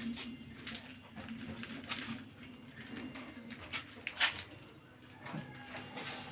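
Scattered light clicks and knocks of a Honda EX5 motorcycle being pushed out by hand with its engine off, with one sharper click a little past four seconds. A faint steady low hum runs underneath.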